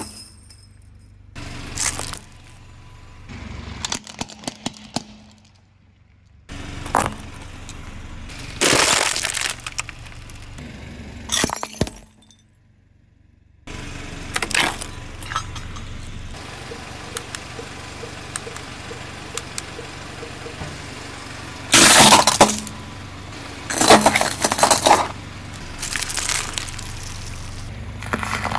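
A car tyre slowly crushing hard objects on concrete: a run of separate crunches and sharp cracks with metallic clinking and scraping, as it rolls over steel nails and a metal ladle. The loudest cracks come about 22 and 24 seconds in.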